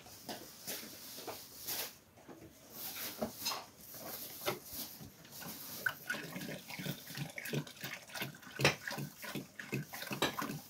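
Water poured from a plastic jug into a metal cooking pot, splashing and gurgling in the second half, with handling knocks and clicks before it.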